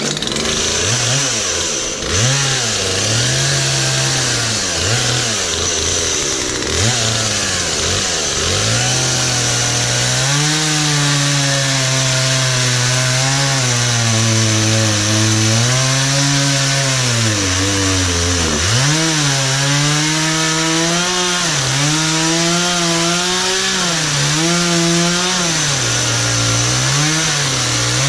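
Gas chainsaw running and cutting wood, its engine revs rising and sagging every few seconds as the chain bites in under load.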